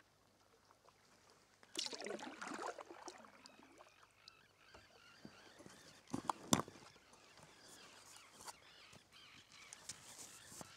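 Arctic terns calling, a bizarre-sounding mass of overlapping cries that starts about two seconds in and carries on. A couple of sharp knocks about six seconds in.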